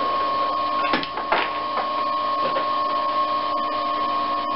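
Steady electrical whine and hum from a powered-up lathe variable speed drive and its three-phase motor's separate electric cooling fan, with a couple of light clicks about a second in.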